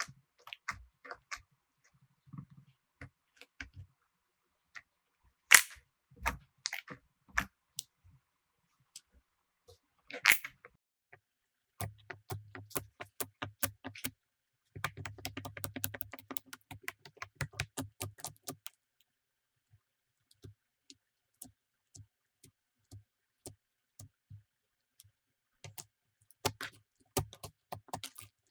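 Slime being pressed and poked, making scattered sticky clicks and pops, with a denser run of fine crackling in the middle.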